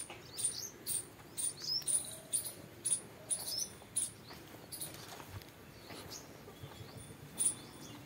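Small birds chirping: a run of short, high chirps, several a second, thinning out after about five seconds and picking up again near the end.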